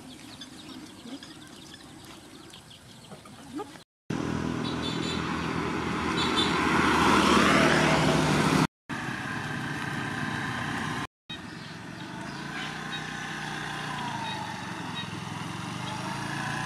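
Motor scooter engine running as the scooter rides along, louder and rising in pitch over a few seconds, then running more steadily. The sound cuts out abruptly three times at edits. The first few seconds are quieter, before the engine is heard.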